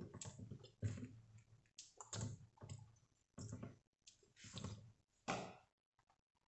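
Faint, scattered clicks and light taps from a metal spoon and a soy sauce bottle being handled over a plastic mixing bowl.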